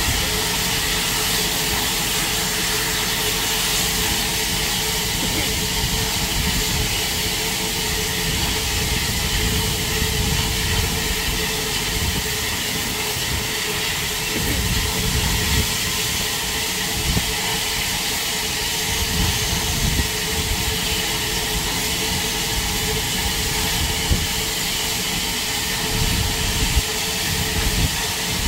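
Bulleid Battle of Britain class steam locomotive 34067 Tangmere standing with steam hissing steadily, over an uneven low rumble.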